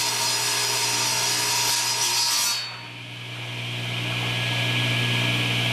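Old Craftsman table saw ripping plywood, the blade's cutting noise over a steady motor hum. The cutting noise cuts off suddenly a little over two seconds in while the motor keeps running, then builds back up toward the end.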